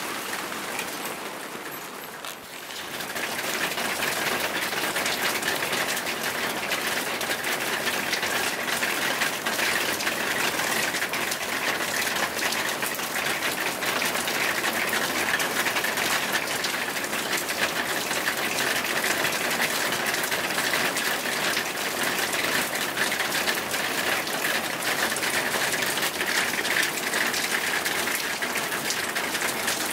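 Heavy rain coming down in a steady, dense patter of drops. It dips briefly about two seconds in, then swells and holds steady.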